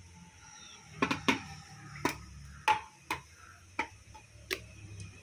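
Raw-banana bajji frying in hot oil in a kadai: a faint steady sizzle with seven sharp, unevenly spaced pops of spattering oil.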